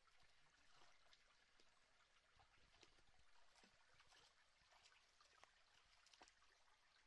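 Faint creek water running steadily, with small scattered clicks over it.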